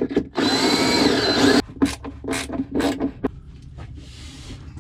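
Cordless drill boring a bolt hole through the autopilot ram's mounting bracket into the fibreglass-covered base: one run of about a second with a motor whine, then a few short bursts of the trigger.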